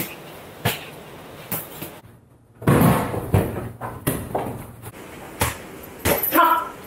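A small basketball bouncing and striking the floor and hoop: a string of separate thuds, the loudest just under halfway through and near the end.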